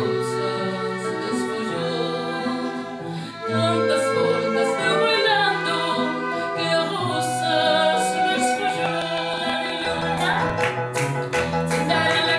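Live music of held chords with a melody line over them; sharp percussive taps join in about ten seconds in.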